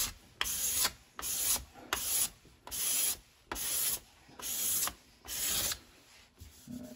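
Steel card scraper, freshly sharpened on stones and burnished to a hook edge, pushed across a wooden board in quick repeated strokes, each a short scraping hiss as it lifts fine shavings. About seven strokes come roughly every 0.7 s and stop near the end.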